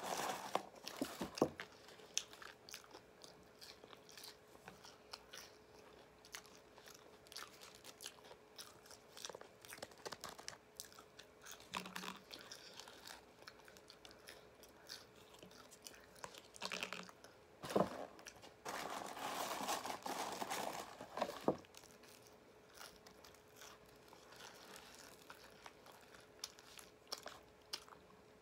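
Person eating KFC food close to the microphone: chewing and crunching with many small clicks, and a louder stretch of crunching about two-thirds of the way through. A paper food box is handled at the start.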